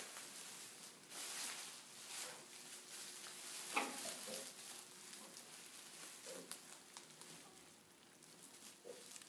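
Three-day-old American Guinea Hog piglets rustling about in straw bedding, with a few short squeaks and grunts; the loudest is a brief falling squeal about four seconds in.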